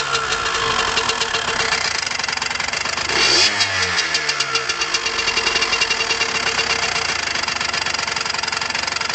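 Derbi Senda motorcycle engine idling, blipped once about three seconds in with the revs then falling back, and running on with a rapid, even pulsing at idle. The owner calls it a strange engine sound without saying what causes it.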